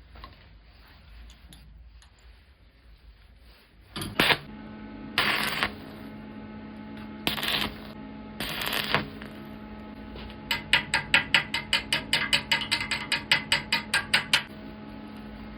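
A small electric power tool's motor starts about four seconds in and runs steadily while working the metal of old pliers. A few short loud bursts of the tool biting the metal come first, then a fast even pulsing of about six strokes a second.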